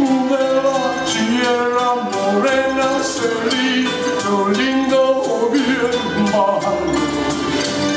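Live music: a man singing into a microphone over instrumental accompaniment with a steady percussive beat.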